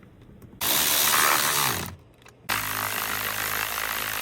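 Handheld power driver running in two bursts, fastening the new steering column control module in place. The first burst is about a second long and winds down in pitch as it stops. The second starts about half a second later and runs on steadily.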